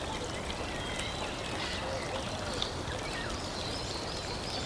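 Steady running water with faint, scattered bird chirps over it.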